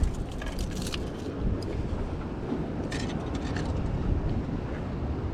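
Wind buffeting the microphone by the sea: a steady low rumble, with a few faint clicks about a second in and again near the middle.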